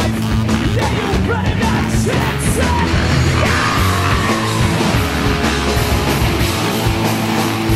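Loud rock song with shouted vocals over a steady driving beat.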